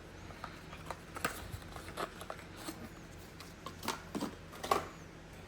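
Scattered light plastic clicks and taps from handling small parts while fitting the standard lens guards onto an Insta360 X5 camera; the clicks come a few at a time, the loudest near the end.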